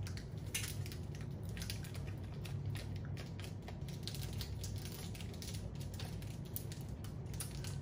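Plastic candy-bar wrapper crinkling and tearing as it is opened by hand: irregular crackles and sharp clicks throughout, over a steady low hum.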